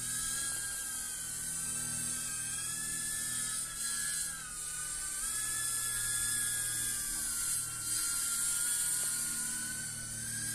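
Cinewhoop FPV drone's brushless motors and ducted propellers whining in flight, the pitch drifting up and down as the throttle changes, with a few short dips in loudness.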